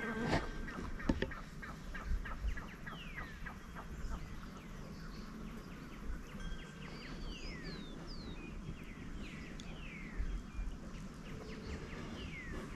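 Birds calling in short, downward-sliding whistles, repeated many times, over a low steady rumble of wind and river. A quick run of clicking comes in the first couple of seconds.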